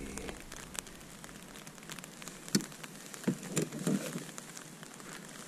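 Light rain: a faint steady hiss with scattered drops ticking, and a few short duller taps in the middle.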